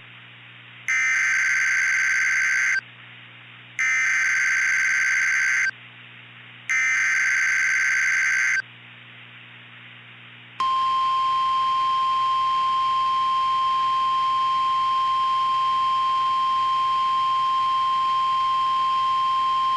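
Emergency Alert System alert: three data-header bursts of about two seconds each, heard as harsh digital screeching, then about ten seconds in a single steady alert tone that holds on. This is the start of a new weather warning broadcast.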